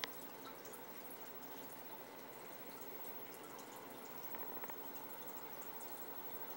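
Aquarium water trickling and dripping steadily, with many small splashes. There is a sharp click right at the start and a few faint clicks about four and a half seconds in.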